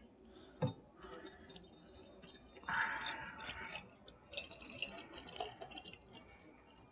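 White vinegar poured from a plastic jug into a glass jar of lemon peels, trickling and splashing unevenly as the jar fills.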